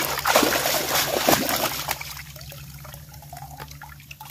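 Water splashing as a large scooping basket is pushed through shallow water among plant roots, loud for about the first two seconds, then settling into a quieter trickle and dribble.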